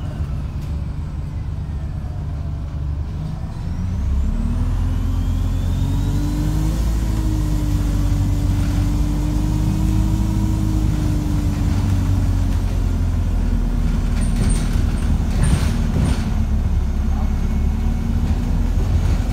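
ADL Enviro350H bus engine heard from inside the cabin, pulling harder about four seconds in, its note climbing and then holding under load, with whines early on and a few rattles and clatters of the body near the end. The engine is one the uploader calls unhealthy.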